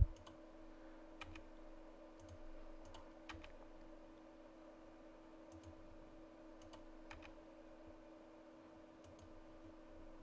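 Computer mouse and keyboard clicks, scattered and faint, about one a second, over a steady low hum.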